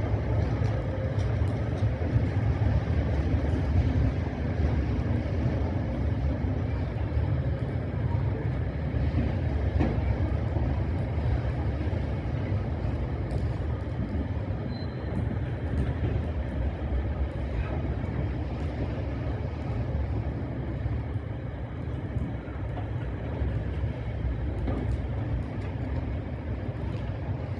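A train running, a steady low rumble that slowly grows a little quieter.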